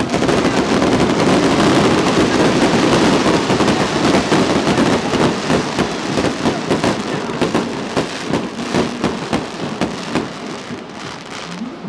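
Aerial firework shells bursting in quick succession, a dense run of crackling and popping that thins out near the end.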